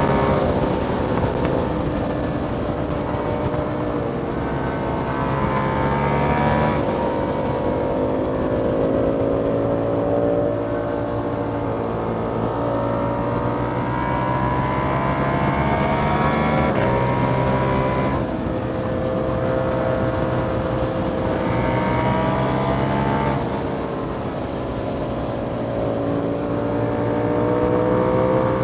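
2021 KTM Duke 890R's parallel-twin engine through an Austin Racing GP1R catless exhaust, pulling hard with its pitch climbing steadily for several seconds at a time. The pitch drops sharply three times: about a quarter of the way in, near two-thirds, and near four-fifths.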